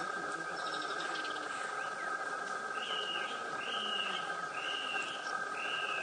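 A bird calling a short note four times, about once a second, starting about three seconds in, over a steady high-pitched drone.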